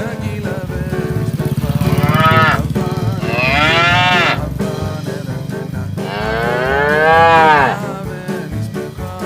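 Cow mooing three times: long calls that rise and then fall in pitch, the last the longest and loudest, over background music.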